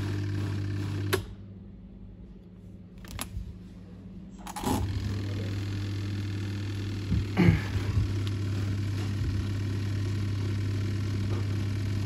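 Steady low electrical hum from a powered semi-automatic washing machine with its drain pump running while the spin motor stays still. The hum drops away for about three and a half seconds from just over a second in, then returns, and a couple of knocks come a little past the middle.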